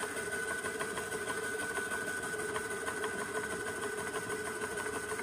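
Motor of a DIY shaking sluice table running steadily, shaking the spring-mounted deck back and forth: a steady hum with a fast, even rattle.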